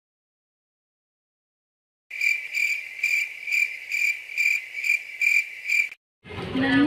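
Cricket chirping sound effect: about ten high chirps at an even pace, starting about two seconds in after dead silence and cutting off abruptly.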